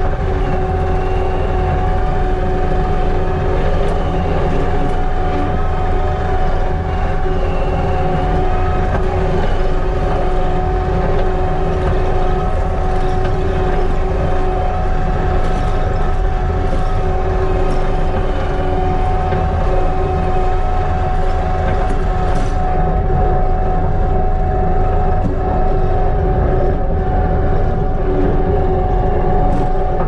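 Kubota SVL95-2s compact track loader's diesel engine running steadily as the machine drives, heard from inside the cab: a constant low drone with a steady hum over it.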